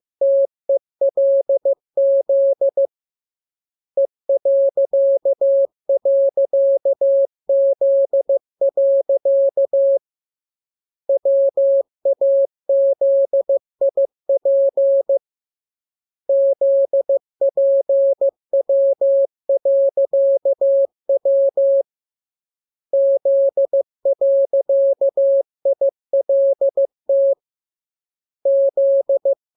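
Morse code as a single steady-pitched tone keyed on and off in dots and dashes, sent in groups of characters with pauses of about a second between them. It is receiving practice in the lesson's letters K, M, U, R, E, S, N, A, P, T, L, W, I, period, J and Z.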